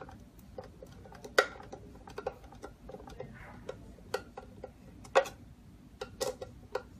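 Irregular sharp clicks and knocks of a metal deadbolt being handled and fitted into the door, the loudest about a second and a half in and again around five seconds in.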